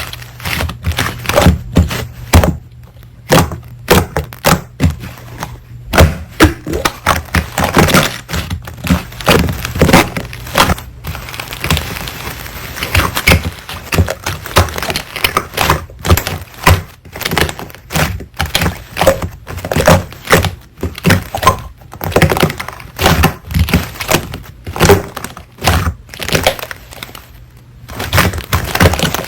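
Slime being squeezed and pressed by hand, making rapid, irregular sticky clicks and pops.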